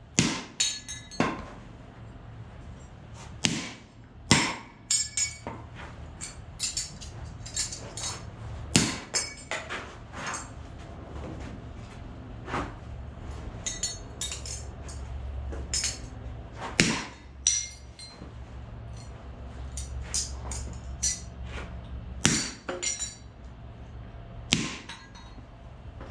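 Repeated irregular hammer blows smashing a King Arthur Lancelot chainsaw-chain angle-grinder attachment, with metallic clinks and rattles of the chain and plates between the heavier strikes.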